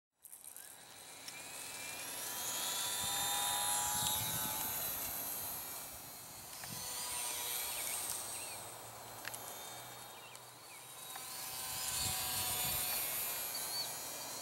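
Ultra-micro electric RC biplane, an E-flite UMX PT-17 Stearman, flying overhead: the small electric motor and propeller give a high whine that grows louder and fades as the plane passes, swelling twice.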